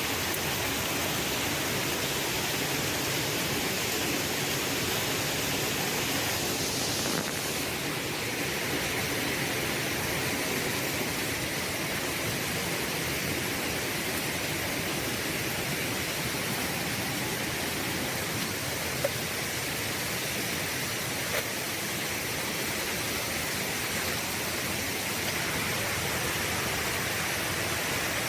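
Waterfall heard as a steady, even rush of falling water.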